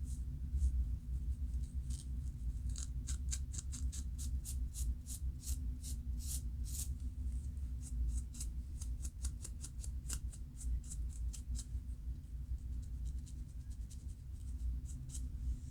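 Scalp being scratched through locs to loosen dandruff flakes: quick, crisp scrapes, about three or four a second, thickest through the middle and thinning out near the end. A steady low hum runs underneath.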